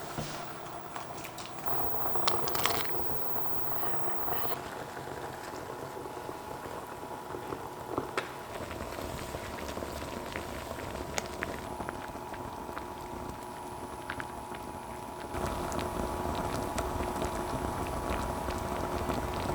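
Liquid bubbling at a boil in an induction-safe earthenware ttukbaegi pot, with many small pops and clicks. It grows louder about fifteen seconds in.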